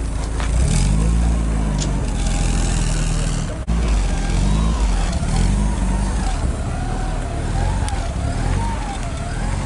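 Porsche 944's four-cylinder engine running at idle, a steady low exhaust rumble.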